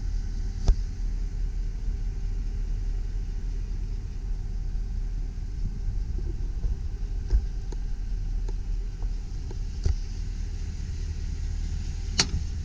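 2001 Chevrolet Silverado 2500 pickup's engine idling with a steady low rumble, heard from in the cab, with a few light knocks over it, the sharpest near the end.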